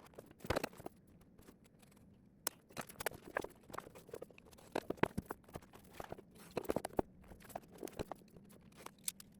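Irregular small clicks, taps and light knocks of objects being handled, scattered unevenly over a faint background.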